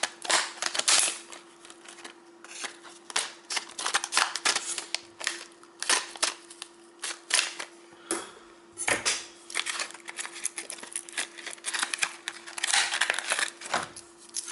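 Scissors cutting open a plastic blister pack: many short snips and crackles of stiff plastic, with a longer stretch of crinkling near the end. A steady faint hum runs underneath.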